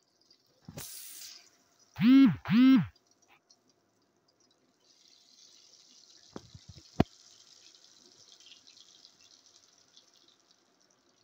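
Masala-coated fish frying in hot mustard oil: a short splash-like hiss about a second in as a piece goes in, then a faint steady sizzle from about five seconds on, with a sharp knock about seven seconds in. The loudest sounds are two short pitched sounds around two seconds in, each rising then falling in pitch.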